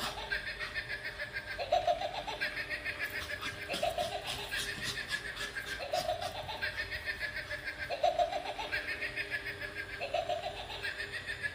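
Electronic Halloween pumpkin toy playing a looping laughing sound effect. The same short laugh phrase repeats about every two seconds.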